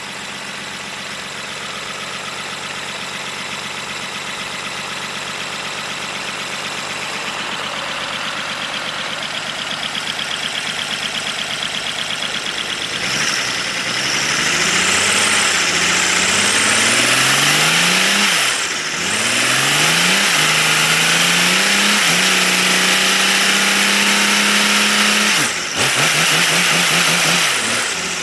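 3D-printed inline-six engine running on compressed air, with a loud hiss of air from about halfway through. Its rattle climbs in pitch several times as it speeds up, dips briefly twice, and holds a steady speed near the end.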